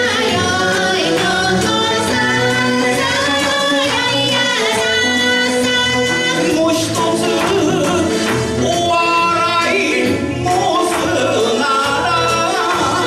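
Kawachi ondo, an Osaka folk narrative song: a man singing long, wavering held notes into a microphone over the band's steady drum beat.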